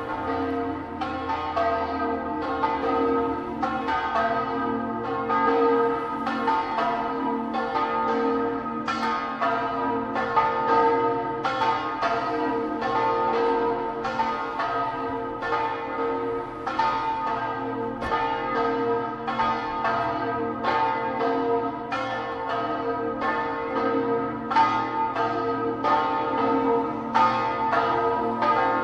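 Several church bells of a bell tower ringing together in a continuous peal. The strikes come about two a second, and each rings on into the next.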